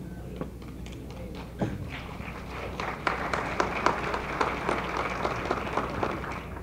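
Audience applauding: a few scattered claps at first, swelling into full applause after a couple of seconds and dying away near the end.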